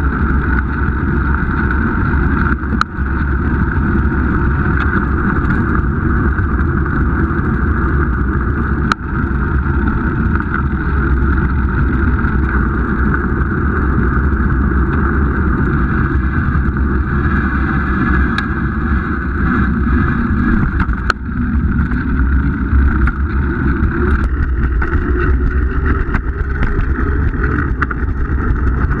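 Steady rumble of wind and road noise picked up by a camera mounted low on a moving bicycle riding in city traffic, broken by a few sharp knocks from bumps.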